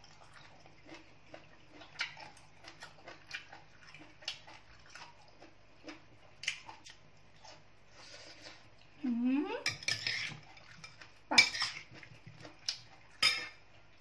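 A metal spoon clinks against a glass bowl of salad, amid eating and chewing sounds made up of many small clicks. About nine seconds in there is a short rising vocal sound, followed by a few louder, sharper clanks.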